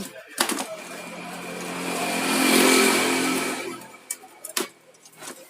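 A motor vehicle passing by: its engine sound swells to a peak about two and a half seconds in, then fades away by about four seconds. A sharp knock comes near the start and another near the end.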